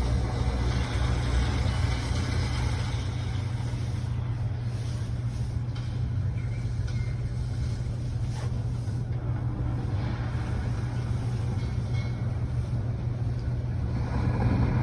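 Steady low hum and rumble inside a high-speed elevator cab as it rises, with no distinct knocks or changes.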